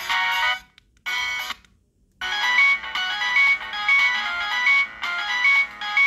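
Samsung SGH-D600 polyphonic ringtones. One tune cuts off about half a second in and a brief snippet follows. After a short gap, a new melody of quick, short notes starts about two seconds in.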